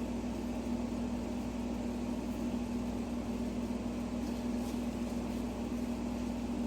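Steady machine hum with a constant low tone and even background noise, and a couple of faint light clicks.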